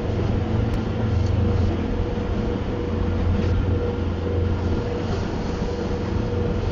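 Grand Craft motor yacht's engine running steadily underway, heard from inside the enclosed helm: a constant low drone with a thin steady tone above it, over a haze of hull and water noise.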